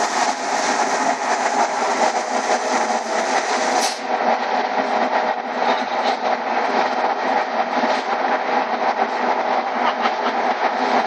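Mobile truck-loading belt conveyor running steadily as it carries jute bags up its incline: a continuous mechanical running noise with a steady hum.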